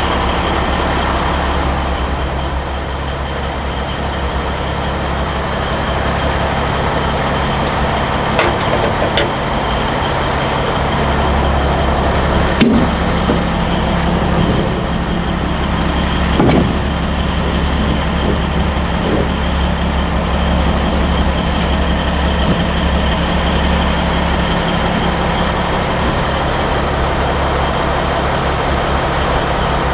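Heavy diesel truck engine, the Peterbilt 362 cabover's, idling steadily. A few short metal knocks and clanks from trailer hardware sound over it, the sharpest about halfway through.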